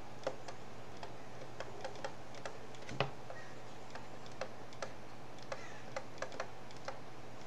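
Light, irregular clicks of a stylus tapping and writing on a tablet screen, with one sharper click about three seconds in, over a faint steady low electrical hum.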